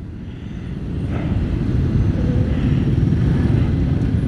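Suzuki Skydrive Sport scooter ridden in moving traffic: its engine and the wind noise grow steadily louder over the first couple of seconds as it pulls away and picks up speed, then hold at a steady rumble among the surrounding vehicles.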